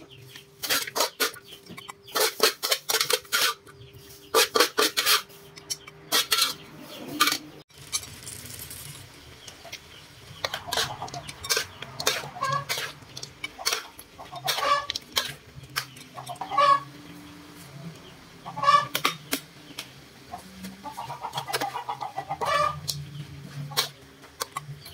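A metal spatula scraping and clattering against a metal wok as a stir-fry is tossed, in quick clusters of clicks over the first six seconds. Through the second half, chickens cluck in short repeated calls.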